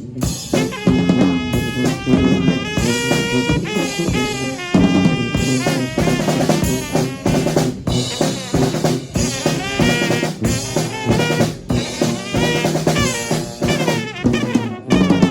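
Small brass band playing a tune: four horns carrying the melody together over a steady drum beat.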